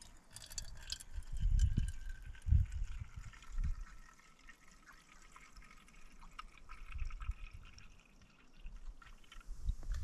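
Liquid fuel trickling and dripping from a fuel bottle into a small brass burner cup. A few dull low thumps sound in the first few seconds.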